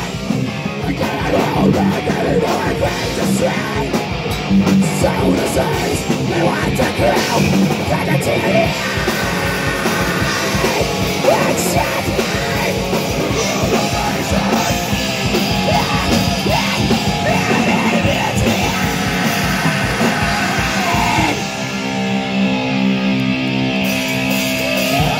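Live heavy rock band playing loud: electric guitars, drums and yelled vocals. About 21 seconds in the drums stop and a guitar chord is left ringing.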